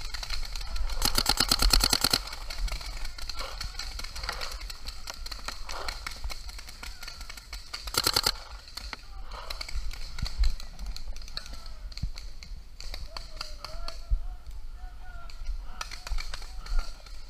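Proto Rail electronic paintball marker firing a rapid string of shots about a second in, lasting over a second, then a short burst near the middle. Scattered, fainter shots from other paintball markers across the field pop throughout.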